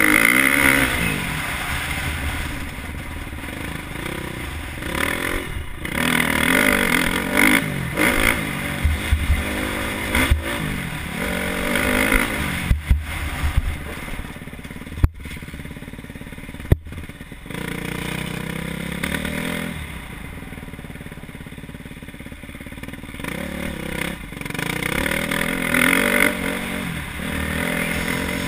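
KTM 350 SX-F single-cylinder four-stroke motocross engine heard from on the bike, revving up and easing off again and again as it is ridden round the track. A few sharp knocks come in the middle, while the throttle is mostly closed for a stretch.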